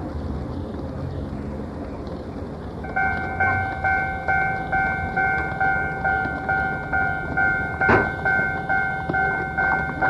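Japanese railway level crossing warning alarm starts about three seconds in, sounding a repeated ringing tone about two strokes a second, over a low rumble. A single sharp click comes near the end. Worn cassette-tape recording.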